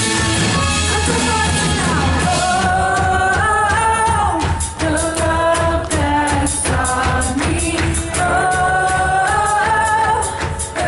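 Worship band playing a song with drums and guitar, and a voice singing the melody from about two seconds in.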